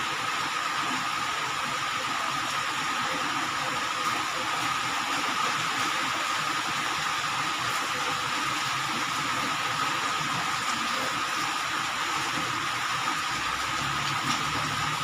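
Steady mechanical background noise: a constant hiss carrying a thin, high, unchanging whine. A low hum joins near the end.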